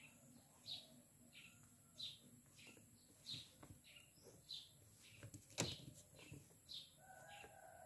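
A small bird chirping faintly, one short high chirp about every two-thirds of a second, with a single sharp tap a little past halfway.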